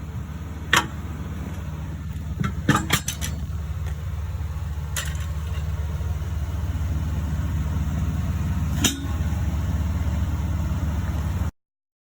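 Truck engine idling steadily, with a few sharp metallic clinks and clanks: one about a second in, a quick cluster around three seconds, one at five seconds and one near nine seconds. The sound cuts off abruptly near the end.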